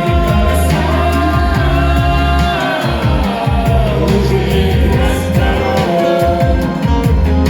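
Russian pop song playing: long held sung notes over a steady bass line and beat.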